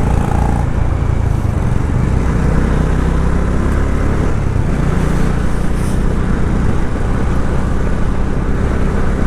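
Bajaj Dominar 400 motorcycle engine running steadily while riding, with road and wind noise.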